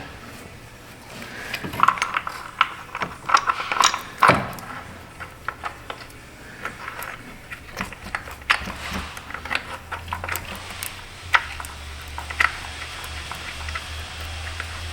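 Metal tools and parts being handled in an engine bay: scattered clinks, clicks and knocks, with a low steady hum coming in about eight seconds in.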